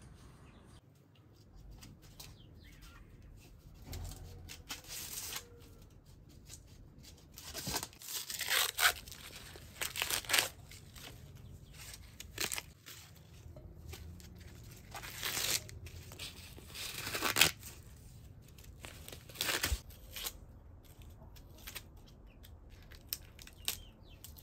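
Fresh green corn husks being torn off the ears by hand: a series of short ripping and crinkling sounds, some loud, with quieter rustling of husk and silk between them.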